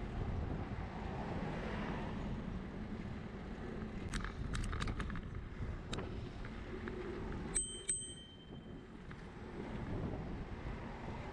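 Bicycle bell rung twice in quick succession about two-thirds of the way through, over steady wind and road noise from a moving bicycle. A run of light, sharp clicks comes a few seconds before the bell.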